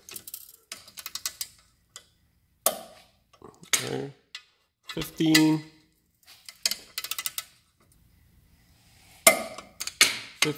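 3/8-inch click-type torque wrench ratcheting on the ball joint's control-arm bolts as they are run down to 15 ft-lbs, in several short bursts of rapid metallic clicks with pauses between.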